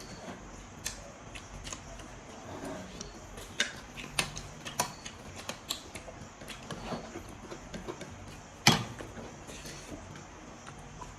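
Eating sounds from a meal of pork and chicken: irregular small clicks and crunches of chewing and handling food on a plate, with one sharper knock a little before the end.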